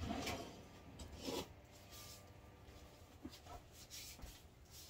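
Faint rustling of a cleaning wipe being pulled out and handled, with a few soft taps in the second half.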